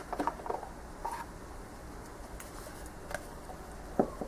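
Light taps and clicks of a cardboard clamshell box and tarot cards being handled, the sharpest tap about four seconds in.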